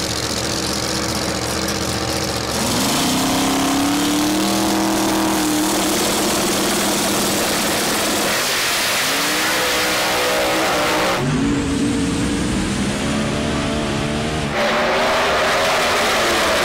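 Drag-race engines, one of them a twin-turbo big-block Hemi in a Camaro, revving at the starting line and then running hard down the strip. The engine pitch climbs in several rising sweeps.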